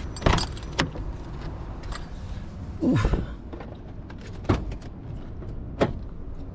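The door handle and latch of a 1993 Volvo 850's door click as the door is pulled open. About three seconds in there is a short creak falling in pitch, then a few sharp knocks as hands touch the door frame and sill.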